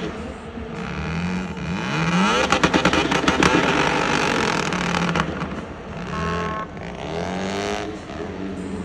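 Rotary engine of a Mystery Machine van replica revving hard during a tyre-smoking burnout, its pitch rising and falling, with a burst of rapid crackling about three seconds in.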